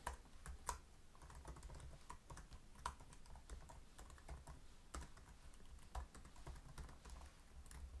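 Typing on a computer keyboard: faint, irregular key clicks as code is entered.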